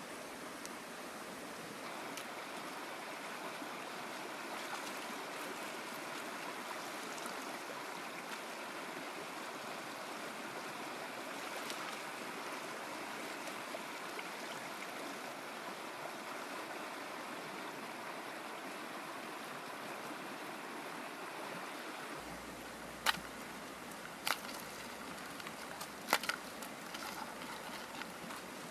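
Flowing stream water rushing steadily. Near the end come several sharp clicks within about three seconds.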